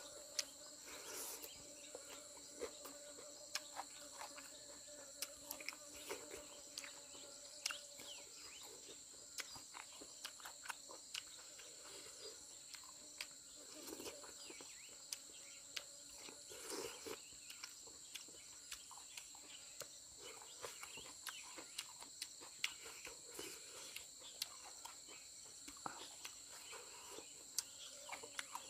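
Faint, steady insect chorus, an even high-pitched drone of crickets, with frequent small clicks and crunches of someone chewing food close to the microphone.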